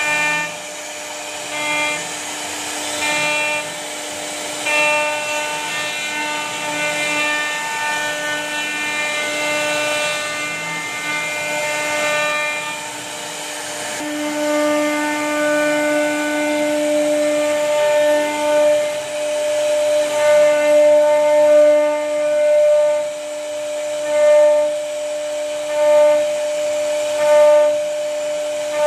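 CNC router spindle whining at a steady pitch as its bit carves a groove into a wooden panel. The cutting noise swells and eases every couple of seconds in the second half as the bit follows the curves.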